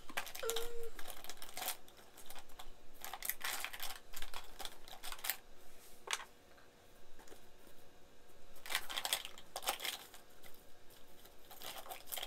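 Makeup products and their plastic cases being handled on a tabletop: irregular bursts of clicks, taps and rustling as items are picked up, opened and set down.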